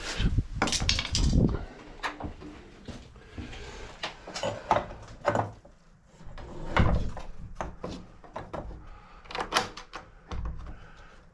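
Wooden door being pushed shut and opened and its deadbolt thrown and drawn back, testing the fit into a freshly mortised strike plate: a string of knocks, clunks and metal clicks, with heavier thumps near the start, midway and near the end.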